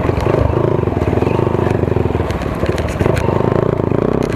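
Motorcycle engine running on the throttle as the bike is ridden through tall dry grass, with scattered rattling clicks.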